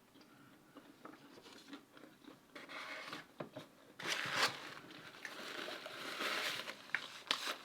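A person biting and chewing crunchy food close to the microphone, with sharp crunches and mouth noises. It is faint at first and gets louder about four seconds in.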